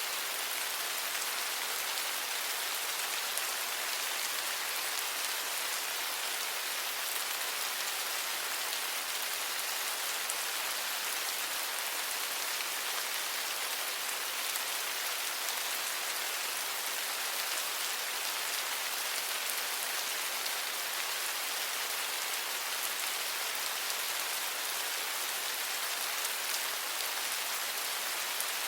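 Steady rain falling, a continuous even hiss of drops with faint individual drop ticks.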